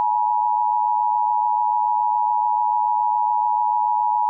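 Emergency Alert System attention signal: a loud, steady electronic alarm tone that holds one unchanging pitch throughout, heralding the next emergency bulletin.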